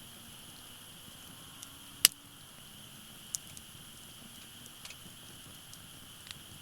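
Burning firewood crackling in a fire pit: one sharp, loud pop about two seconds in and a few smaller snaps.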